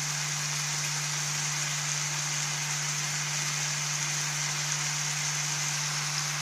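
Small anchovies shallow-frying in hot oil in an uncovered pan: a steady sizzle that does not let up, with a steady low hum beneath it.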